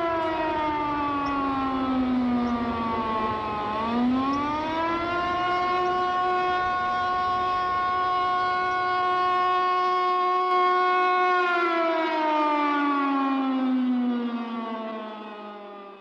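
Outdoor warning siren sounding a test: a wail that slides down in pitch, rises again about four seconds in, holds a steady tone for several seconds, then slides down again and fades near the end.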